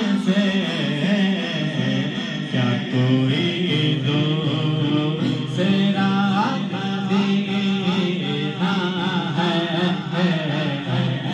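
A man sings a wavering, ornamented vocal line into a JTS TK-600 handheld microphone to test it, with instrumental accompaniment sustained underneath.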